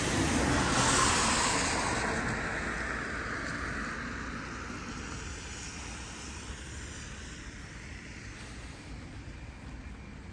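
A car passing by, loudest about a second in and then fading steadily away.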